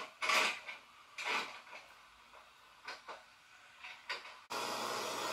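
VCR tape-loading mechanism clicking and clunking as a VHS cassette is pushed in and drawn into the deck. About four and a half seconds in, a steady hiss like video static starts at once and cuts off abruptly.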